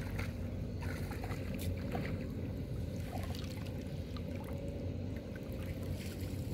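Steady low rumble, with faint splashes and drips of water as a cast net is gathered and lifted out of shallow river water.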